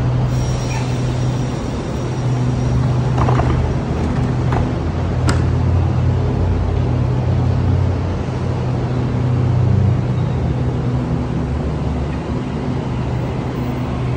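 Electric express train at a platform, giving a steady low hum from its running equipment, with three short clicks between about three and five seconds in.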